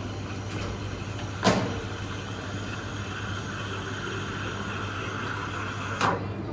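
Espresso machine steam wand hissing steadily in a stainless steel pitcher of milk as the milk is steamed, with a higher steady tone from about two and a half seconds in. Two sharp knocks stand out, one about a second and a half in and one near the end.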